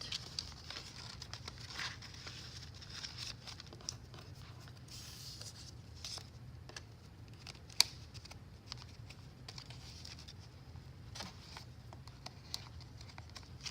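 Paper pages, tags and cards of a handmade junk journal rustling and crinkling as they are handled and turned, with light taps and small clicks throughout and one sharper click about eight seconds in.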